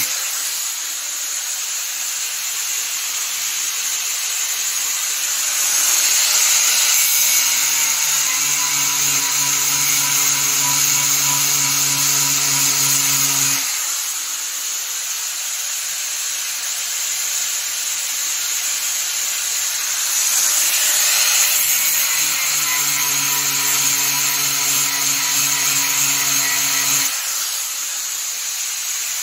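Power grinder grinding metal off a part to thin it, with a steady hiss throughout. Its motor hum drops out and comes back twice.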